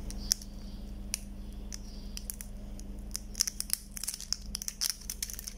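Small clicks and crinkles from fingers and tweezers handling a swollen lithium-ion pouch battery and its insulation paper, growing busier about three and a half seconds in, over a faint steady hum.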